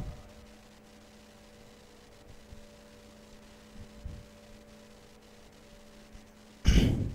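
Steady low electrical hum, with a few faint soft rubs of a marker and duster on a whiteboard. A short burst of a man's voice comes near the end and is the loudest sound.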